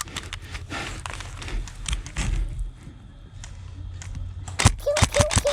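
Scattered clicks and rattles of an airsoft player handling his magazines and rifle mid-reload. Near the end come four sharp snaps in quick succession.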